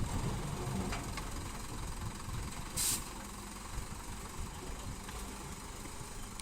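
Diesel engine of earthmoving machinery running at a low, steady idle, with a short hiss of released air about three seconds in.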